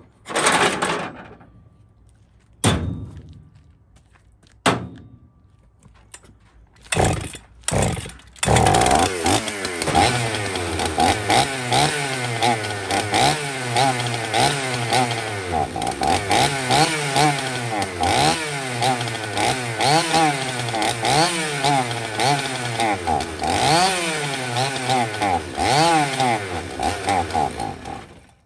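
Two-stroke chainsaw being pull-started: a few short bursts as it is pulled over, then it catches about eight seconds in and runs unevenly, its speed surging up and down about once a second, before cutting out suddenly near the end. It runs only on fuel fed by hand into the carburetor, a fuel-starvation problem the owner puts down to a bad carburetor diaphragm.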